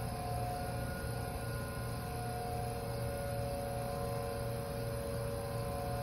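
Distant outdoor tornado warning sirens sounding long, steady tones during a routine test, their pitch shifting slightly, over a low hum that pulses about twice a second.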